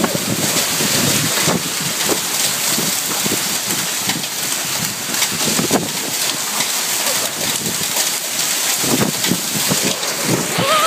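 Hail and heavy rain pelting down: a steady hiss of rain with many separate sharp hailstone impacts all through it.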